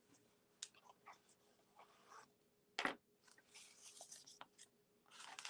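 Near silence from a frozen video-call connection, with faint rustling and a few soft clicks, one a little louder about three seconds in.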